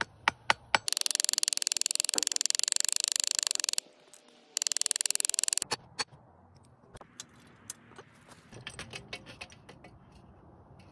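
Hammer peening over a rivet on a leather strap against a steel post anvil: three separate taps, then a fast, even run of light metallic taps lasting about three seconds, a shorter run about a second later, and scattered fainter taps after that.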